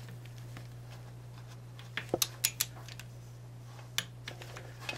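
Torque wrench clicking on the small socket cap bolts of a 2006 Suzuki GSX-R600's engine cover as they are checked at their set torque: a quick cluster of sharp clicks about two seconds in and one more near four seconds. A steady low hum sits underneath.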